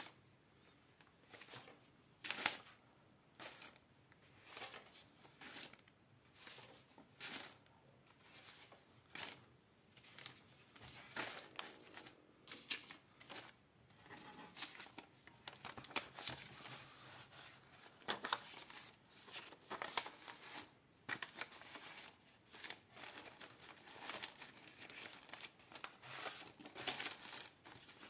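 Euro banknotes handled and counted by hand: crisp paper rustles and flicks as note after note is peeled off and laid down, about one a second and faster for a stretch in the middle.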